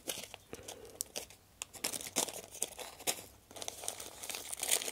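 Small bags of washers crinkling and rustling as hands rummage through a plastic parts tub, with scattered light clicks.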